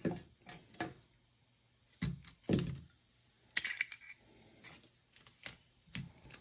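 Small hard parts of a GoPro Hero 9 and its metal add-on being handled and taken apart: a string of separate clicks and knocks, with a brighter metallic clink about three and a half seconds in.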